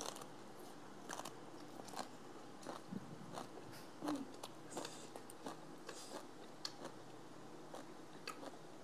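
Close-up chewing and crunching of spicy green papaya salad, with many short crisp crunches scattered through the chewing.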